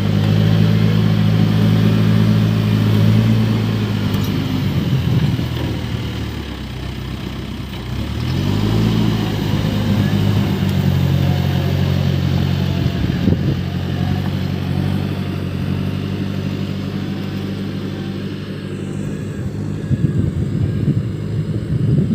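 Case backhoe loader's diesel engine running as it works; the revs sag a few seconds in, rise again about eight seconds in, then hold steady, with rougher knocking near the end.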